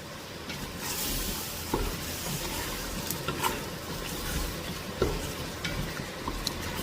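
Chopped beef and vegetables sizzling in a pan with a little water, stirred with a utensil that scrapes and clicks against the pan now and then.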